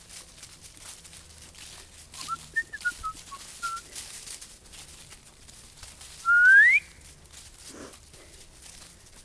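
A person whistling to the dogs: a few short whistled notes, then a few seconds later one loud, rising whistle, over the crackle of footsteps in dry fallen leaves.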